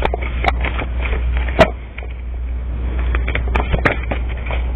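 Tarot cards being handled and shuffled: irregular clicks and rustling, one sharper snap about a second and a half in, over a steady low hum.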